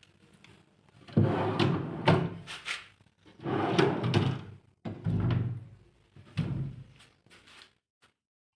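Wooden parts knocked and slid against each other, about five separate knocks and scrapes each fading over a second, like small wooden doors or drawers being opened and shut.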